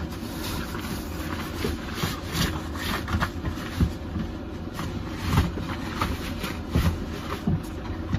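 Bedding rustling and swishing in irregular bursts as sheets and a mattress protector are pulled off a futon mattress and gathered up, over a steady low rumble.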